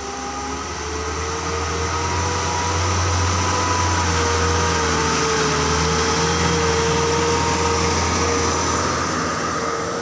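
Diesel box truck climbing a steep uphill grade, its engine running at a steady drone that grows louder as it draws close and passes, then fades near the end.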